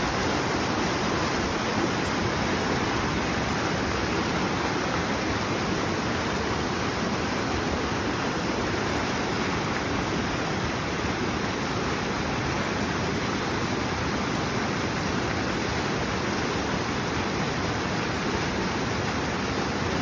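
Swollen mountain creek rushing over rocks in whitewater: a loud, steady rush of water.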